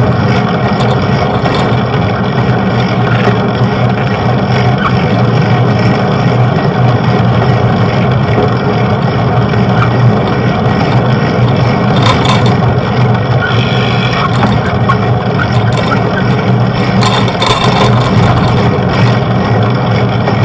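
Steady rush of wind and road noise on a bicycle-mounted camera while riding, with a few brief knocks about twelve and seventeen seconds in.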